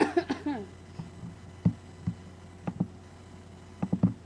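A short sound falling in pitch at the start, then a few scattered soft thumps and knocks over a steady low hum, like someone moving about and handling things in a small room.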